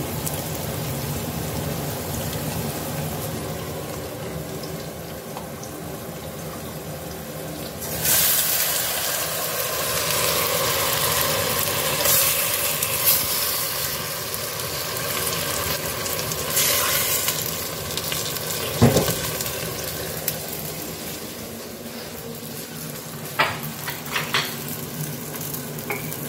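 Chopped onion, carrot, celery and red pepper frying in oil in a stainless steel pot, sizzling steadily. About eight seconds in, the sizzle jumps suddenly louder as raw chicken pieces go into the hot pot. A sharp knock comes later, then a couple of light clicks.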